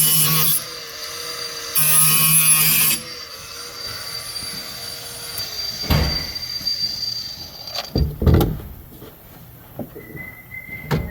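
Small handheld grinder grinding off the protruding ends of steel hot-repair staples set in a plastic headlight tab: two short, loud bursts of grinding over the motor's steady whir. The motor then winds down a little past halfway, and a few sharp knocks follow.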